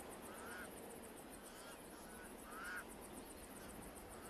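Pied crows calling: three short, arched cawing calls about a second apart, faint over a light hiss.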